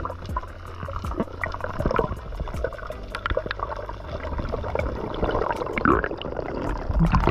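Underwater sound picked up by a diving camera over a reef: a constant crackle of sharp clicks and bubbly gurgling over a steady low rumble.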